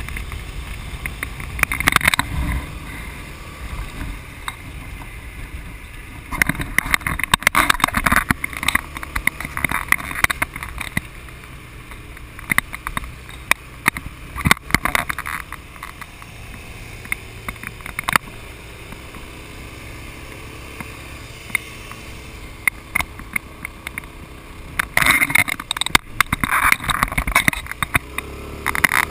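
Motorcycle riding at speed, heard from a camera mounted on the bike: a steady rumble of engine and road under wind noise on the microphone. Wind buffets the microphone in crackling bursts about two seconds in, again from about seven to ten seconds in, and near the end.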